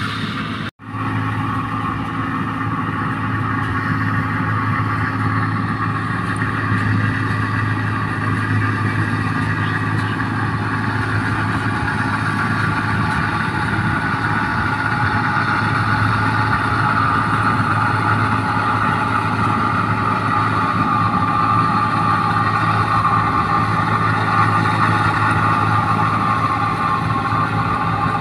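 A New Holland 1545 rice combine harvester runs steadily while cutting and threshing rice, a continuous engine and machinery drone that grows a little louder as it comes closer. The sound cuts out for a split second just under a second in.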